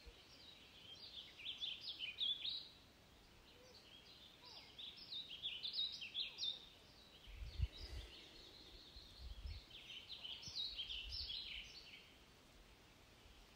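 Songbird singing in several bouts of rapid, high chirping notes, each a couple of seconds long, over a faint steady hiss.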